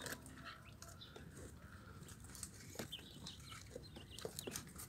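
Faint rustling and scuffling as kale leaves are pushed between the wooden bars of a quail cage and the quail shift about, with a few soft, short chirps.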